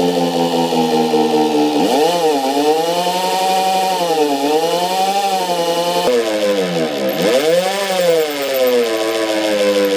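A motor-driven tool runs steadily, its pitch sagging and recovering about three times, the deepest dip near the end, as it bogs down under load and picks up again.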